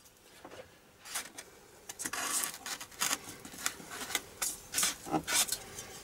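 Styrodur foam wing section being peeled off double-sided tape and turned over by hand: irregular rubbing and crackling, with several sharp clicks and knocks in the second half.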